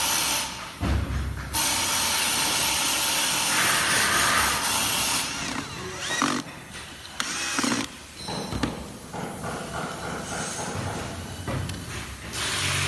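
Cordless drill-driver running in bursts as it drives screws into an electric scooter's stem folding clamp: a long run with a dense hiss in the first five seconds, then several short bursts.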